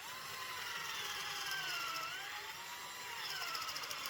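Cordless drill boring a pocket hole in plywood through a small pocket-hole jig. The motor whine starts suddenly, sags in pitch about two seconds in as the bit loads up, then picks up speed again.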